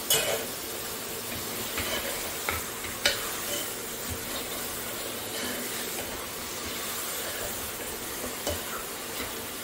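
Mutton pieces and mutton mince sizzling in ghee and tomato masala in an open pressure cooker as they are fried (bhuna). A steel ladle stirs them, scraping and knocking against the pot a few times.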